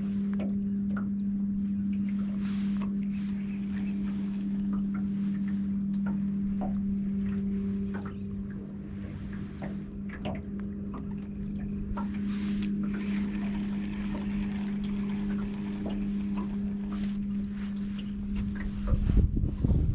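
Boat motor running with a steady, even hum while the boat moves across the water, with small splashes and clicks over it. There are a few low knocks and rumbles near the end.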